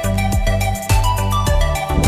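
Electronic background music: held synth notes over a bass line with a beat.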